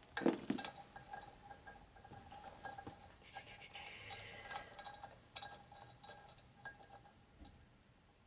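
Light clicks and clinks of metal engine parts being handled and fitted by hand, scattered irregularly, over a faint steady hum.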